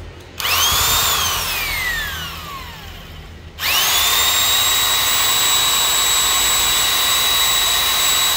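330 W corded electric drill switched on and spinning up to a steady high whine, then released so the whine falls as it coasts down. About three and a half seconds in it is switched on again, spins up and runs steadily. The seller says this motor sparks heavily at its carbon brushes.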